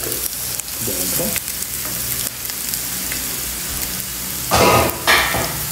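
Meatballs and onions frying in oil in a nonstick pan, a steady sizzle with a plastic spatula stirring and scraping. There is a loud clatter about four and a half seconds in as the camera tripod is nearly knocked over.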